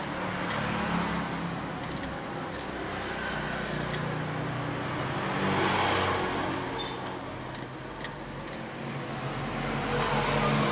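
A motor running with a steady hum whose speed rises and falls, swelling louder about six seconds in and again near the end.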